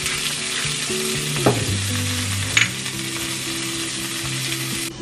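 Broccolini sizzling and frying in a hot cast-iron skillet, a steady hiss with two sharp taps about one and a half and two and a half seconds in.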